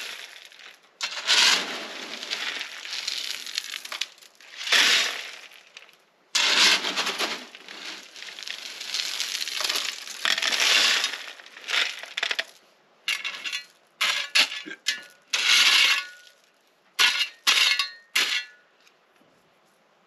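A metal shovel scooping gravel from a wheelbarrow and tipping it over a perforated drain pipe, backfilling a French drain: gravel scraping and rattling, one scoop after another. The strokes get shorter and choppier near the end.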